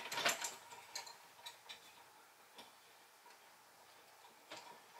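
Scattered light clicks and ticks, irregular and a second or so apart, from the clamp-on keyboard tray's clamp being turned by hand to tighten it onto the desk.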